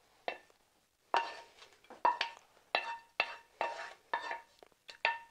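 A wooden spatula scrapes and knocks against a small nonstick pan, about two strokes a second, as tempering is scraped out of the pan. The pan rings briefly with each knock.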